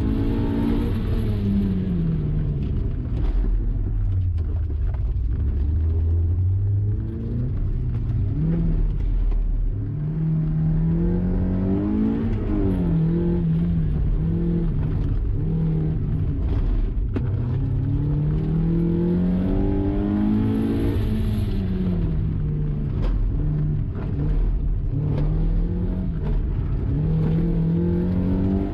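Mazda MX-5's four-cylinder engine heard from inside the cabin, repeatedly revving up under acceleration and falling away as the car is driven hard between cones, with a steady low road and tyre rumble underneath.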